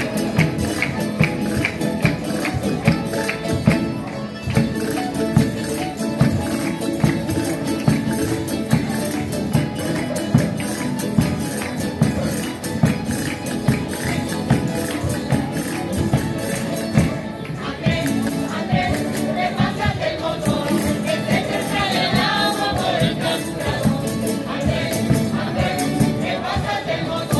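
Canarian folk music played on the move by a group of strummed guitars and timples with a rope-tensioned drum keeping a steady beat. Group voices join in singing about two-thirds of the way through.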